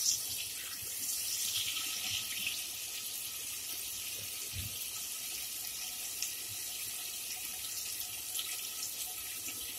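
Butter and oil sizzling steadily in a pot as they melt and heat, stirred with a wooden spatula. A soft knock about four and a half seconds in.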